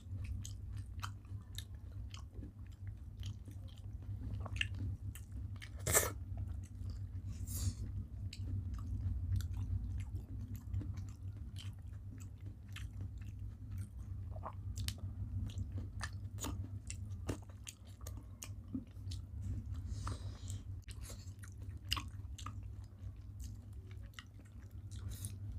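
Close-up chewing of a rice-and-curry meal, with scattered small clicks and mouth sounds and one louder click about six seconds in, over a steady low hum.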